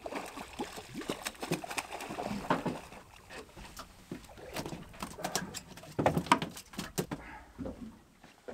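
A run of irregular knocks, taps and rustles, the handling noise of people and gear moving about on a small fishing boat.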